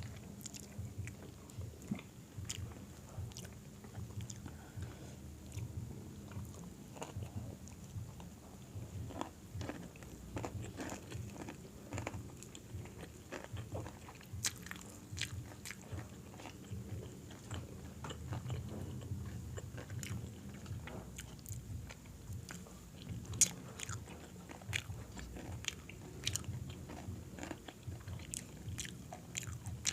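Close-up eating sounds: crisp fried chicken skin crunching as it is bitten and chewed, with many short irregular crackles and a few louder snaps.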